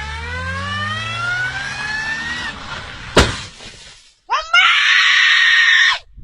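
A car engine revs up, its pitch climbing steadily for a couple of seconds. About three seconds in comes a single sharp crash impact of a car wreck. A second later a loud scream rises and is held for over a second before cutting off suddenly.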